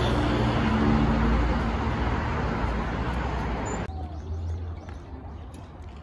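Steady road traffic noise with a low rumble. It cuts off suddenly about four seconds in, giving way to quieter outdoor ambience with a couple of faint bird chirps.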